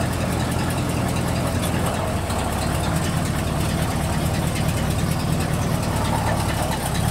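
Cadillac DeVille convertible's big-block V8 idling steadily, its low rumble growing fuller about two seconds in.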